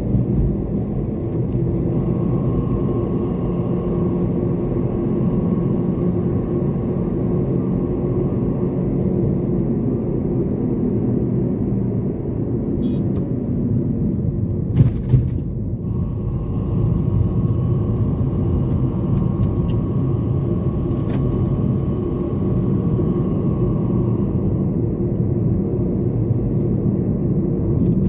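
Toyota Corolla driving at a steady pace: a continuous low rumble of engine and road noise, with one short sharp knock about halfway through.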